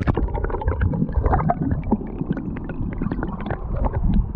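Muffled river water gurgling and rumbling, with many scattered small knocks and clicks, as heard through a camera held underwater.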